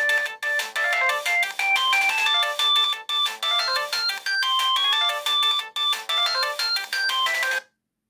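Vodafone 246 mobile phone playing a polyphonic ringtone through its small speaker: a quick electronic melody with several notes sounding at once. It cuts off suddenly near the end.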